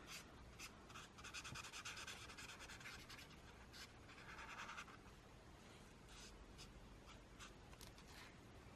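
Faint scratchy strokes of colouring on paper, in two short runs over near silence.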